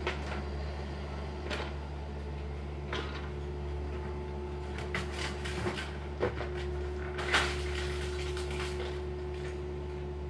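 Demolition-site machinery, a wrecking excavator and debris trucks, running steadily with a low engine hum, with scattered knocks and clatters of wooden demolition debris, the loudest a clattering cluster about seven seconds in.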